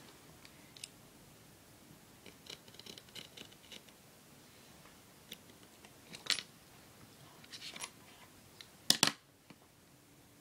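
X-Acto hobby knife scoring and cutting a V into a strip of duct tape on a plastic cutting mat: faint scratches and small clicks. Near the end comes a louder double knock as the knife is laid down on the mat.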